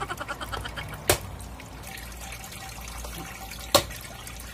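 Two sharp knocks, about a second in and near the end, of a hammer striking the back of a knife to chop through a large tilapia, over the steady trickle of running water.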